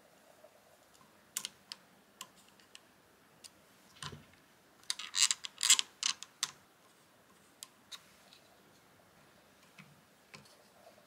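Small clicks, taps and rattles of a hex key and plastic parts as a Prusa i3 MK3S extruder is fitted and screwed back together. A quick run of louder clicks comes about five seconds in.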